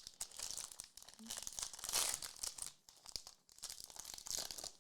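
Trading-card pack wrapper being torn open and crinkled, a rustling in several bouts with short pauses between them.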